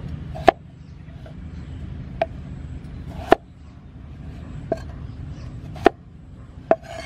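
Large kitchen knife cutting through a peeled potato onto a wooden chopping block: six sharp knocks at uneven intervals, roughly one a second, over a steady low rumble.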